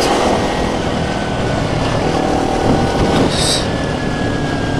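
Motorcycle cruising at a steady speed, its engine running under steady wind noise on the rider-mounted microphone.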